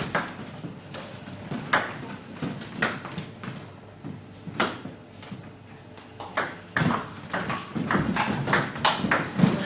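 Table tennis rally in a doubles match: the celluloid-type ball clicking off rubber-faced bats and bouncing on the table. The hits come a second or two apart at first and quicken into a fast exchange near the end.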